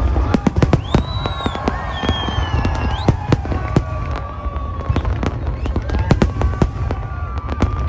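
Fireworks display going off: a dense, irregular run of sharp bangs and crackles over a constant deep rumble, with faint whistling tones sliding through.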